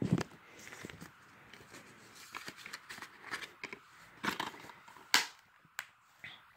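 A plastic DVD case and paper inserts being handled: irregular clicks, taps and light rustles, with a sharper knock at the start and the loudest one about five seconds in.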